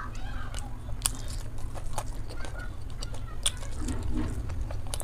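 Close-miked chewing of momo dumplings with the mouth closed, with scattered, irregular mouth clicks and smacks over a steady low hum.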